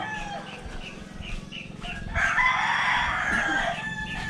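A rooster crowing once, loudest about halfway through, its last note held before it fades.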